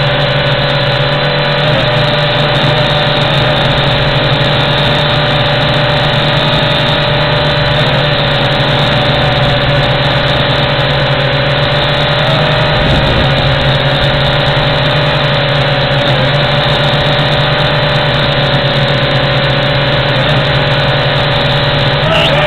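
WLToys Q222G toy quadcopter's motors and propellers running steadily in a hover, a constant whine over a low hum, close on the drone's own onboard camera microphone; the pitch wavers slightly every few seconds.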